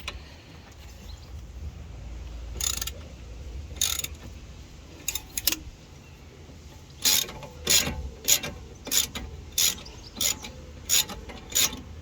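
Half-inch socket ratchet clicking as it undoes a nut that has already been broken loose. A few spaced clicks come first, then from about seven seconds in a regular run of clicks, roughly one every half second or so, as the handle swings back and forth.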